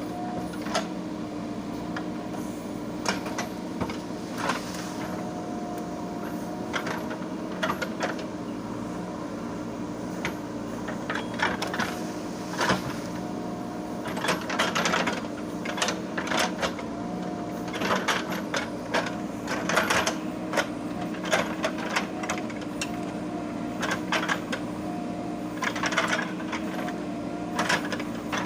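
JCB 3DX Super backhoe loader's diesel engine running at a steady hum that wavers slightly in pitch, with frequent sharp clanks and knocks from the working machine.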